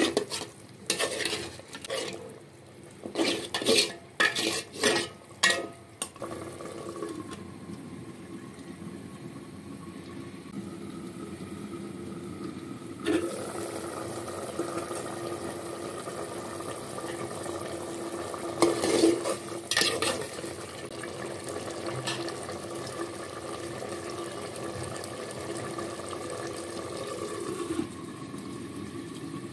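Beef curry being stirred in a metal pot: a utensil clanks and scrapes against the pot several times in the first six seconds and again briefly around the middle. Between the clanks the curry sizzles and bubbles steadily, louder from about halfway.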